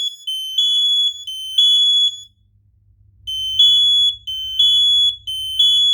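Kidde smoke alarms, including the 1285K under test, sounding the temporal-three evacuation pattern: three loud high-pitched beeps, a pause of about a second, then three more. Two alarms at slightly different pitches sound together a little out of step.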